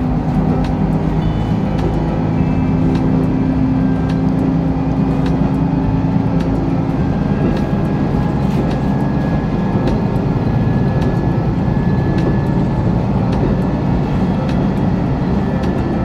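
On-board running noise of a JR Hokkaido KiHa 54 diesel railcar under way: a steady diesel engine drone with rail and wheel rumble, its engine note shifting about halfway through.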